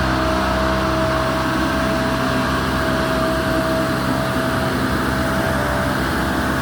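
An engine running steadily at constant speed, with a steady whine over it that fades out about six seconds in.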